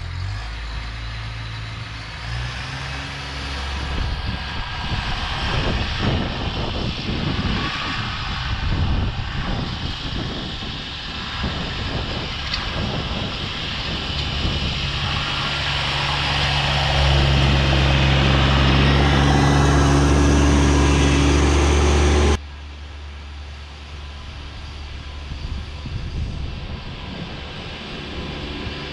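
Kubota B2601 compact tractor's three-cylinder diesel engine working under load while pushing wet, slushy snow with a front plow, growing louder as it comes closer. After about twenty seconds the sound drops suddenly to the same engine running farther off.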